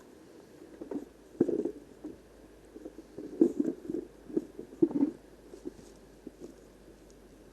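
Footsteps on a trail: an uneven run of soft thuds, louder and closer together in the middle stretch.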